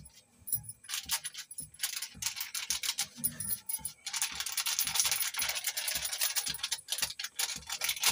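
Plastic spice packet crinkling as garam masala is shaken out of it over a kadai of curry, with bangles jingling. Scattered crackles at first, then a denser rustling from about four seconds in until nearly the end.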